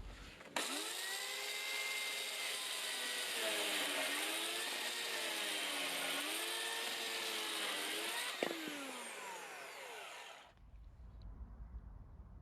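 Electric chainsaw switched on, its motor whine rising quickly to speed, then dipping in pitch a few times as it is loaded, as when cutting wood. A click about eight seconds in, after which the whine falls steadily in pitch as the motor winds down and stops.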